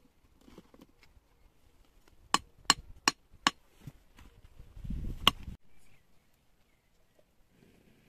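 Sharp knocks of hard objects striking: four in quick succession about two and a half seconds in, then a low rumble with one more knock near five seconds.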